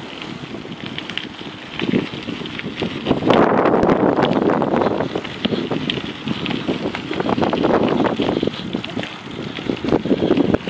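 Wind buffeting the microphone of a camera carried on a moving mountain bike, over the crunch and rattle of bicycle tyres rolling fast on a loose gravel trail. It grows louder about three seconds in and again a little past halfway.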